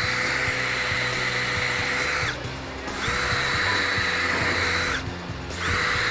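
Cordless drill spinning a 14 mm Bench Buddy bore brush in the valve bores of an Allison 1000-series valve body, scrubbing out residue: a steady whine that stops about two seconds in, runs again for about two seconds, and starts once more near the end.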